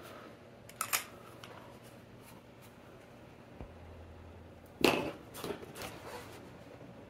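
Quiet handling sounds at a desk: a small click about a second in, then a louder knock followed by a few lighter rustles and taps about five seconds in as a fountain pen is picked up.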